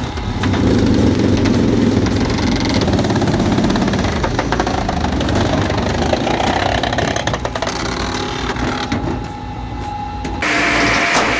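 A machine's engine running steadily, its sound shifting about three seconds in and again near the end.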